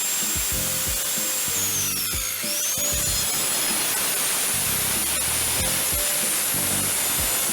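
Background music with changing bass notes, and a swooping effect about two seconds in.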